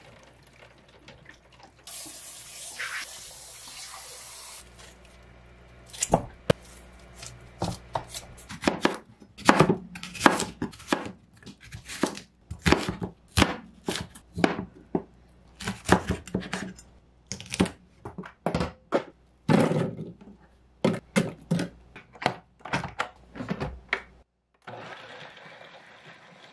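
A tap runs briefly, then a kitchen knife chops apple and onion on a wooden cutting board, with dozens of sharp cuts in quick runs. Near the end a countertop blender starts running.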